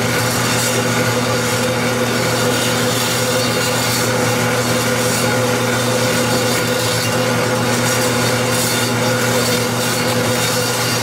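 Power metal-cutting saw running steadily, its blade cutting through two lengths of 11/16-inch cold-rolled steel round bar, over a constant motor hum.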